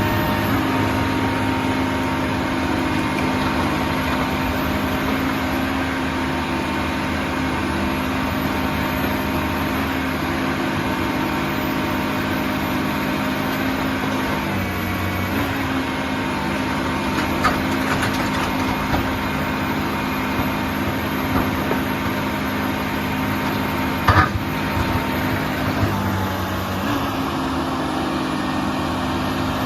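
Portable scrap baler's engine and hydraulic pumps running steadily with a thin whine, the engine note dipping briefly twice. A few sharp knocks come about two-thirds and four-fifths of the way through.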